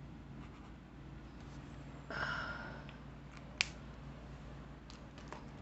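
Quiet desk handling of Sanjoki alcohol markers: a brief scratchy rub about two seconds in, then a single sharp click, and a few lighter clicks near the end. A steady low hum runs underneath.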